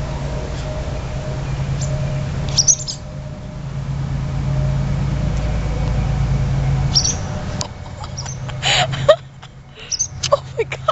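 Barn swallows giving short, high chirping calls a few times, with a quicker run of chirps near the end, over a steady low rumble.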